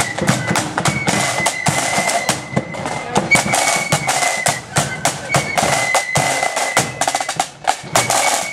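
Marching flute band playing: flutes carry a high melody over rapid snare drum strokes and bass drum beats.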